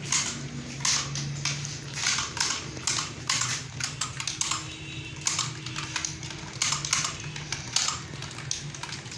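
Computer keyboard being typed on: irregular runs of key clicks, with short pauses between bursts, over a steady low hum.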